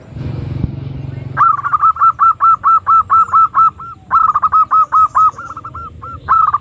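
Female zebra dove (perkutut) lure call: rapid short hooked call notes, about five a second, in three runs with brief pauses. It starts after about a second of low rushing noise.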